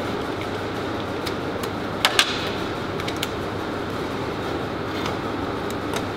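Steady workshop background noise, with a couple of short sharp clicks about two seconds in and a few faint ticks as hand tools are handled in the engine bay.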